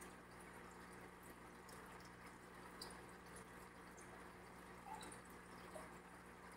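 Faint aquarium bubbling and trickling water, with scattered tiny pops and drips from an air bubble column, over a steady low electrical hum from the filter pump.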